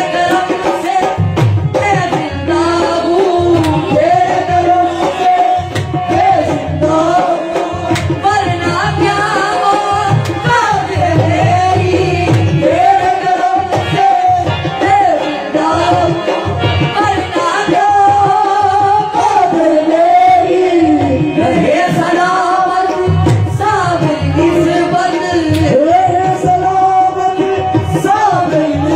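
Qawwali: a male voice singing a devotional song in long, wavering melodic lines over harmonium and a steady dholak hand-drum beat.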